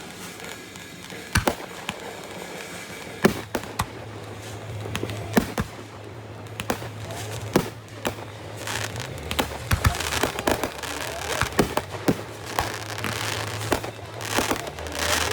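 Aerial fireworks going off: single sharp bangs spread through, then thicker runs of bangs and crackling from about nine seconds in and again near the end.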